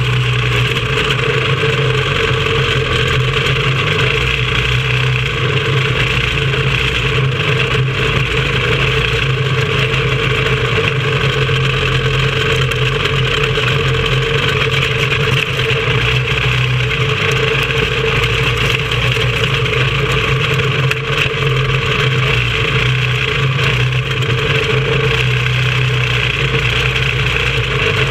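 Racing kart's small engine running steadily at low speed, heard from on board the kart, with no revving up or down.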